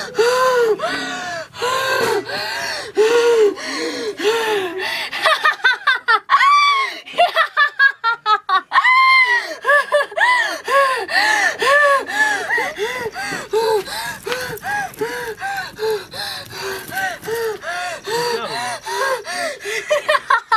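A woman's voice making a long run of rhythmic gasping cries, each rising and falling in pitch, about two a second, quickening into a faster, higher laughing cackle around a third of the way in, then settling back to the steady rhythm: the panting and cackling of someone acting possessed by a ghost.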